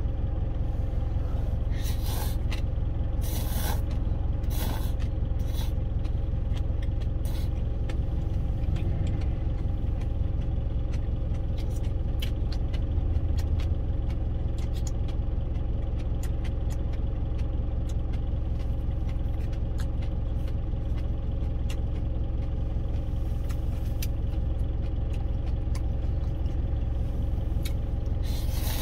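A truck's engine idling steadily, heard from inside the cab, with repeated short noodle slurps and chewing noises over it.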